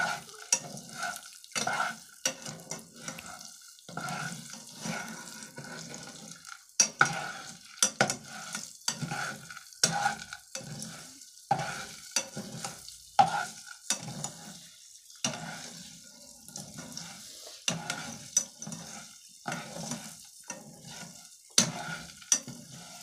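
Metal spatula stirring and scraping popcorn kernels in hot ghee in a saucepan, the kernels rattling and sizzling in repeated strokes about one to two a second, with a few sharper clicks among them. The kernels are heating and have not yet begun to pop.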